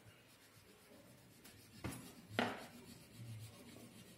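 Faint scratching and rubbing of a green crayon colouring in on drawing paper, with a couple of sharper scrapes about two seconds in.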